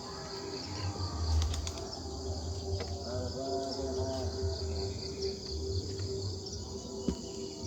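Steady insect chorus, an even high-pitched buzz, over a low intermittent rumble. A few soft, short arching calls come about three to four seconds in.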